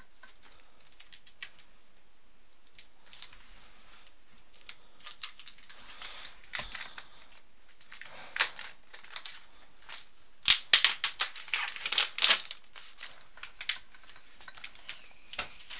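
Plastic wrapping being pulled off a laptop keyboard dock: scattered crinkles and sharp clicks, sparse at first and coming thick and fast in a burst about two-thirds of the way through.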